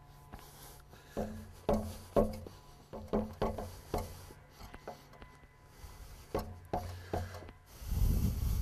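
Irregular dull knocks on a pressure-treated wooden post as a work boot kicks its foot to settle it in its metal post base on the concrete pier. A low rumble near the end.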